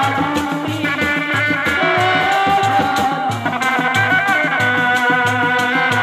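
Sundanese dog-dog frame drums beaten with sticks and hands in a fast, steady interlocking rhythm, with a high, wavering, ornamented melody line playing over them.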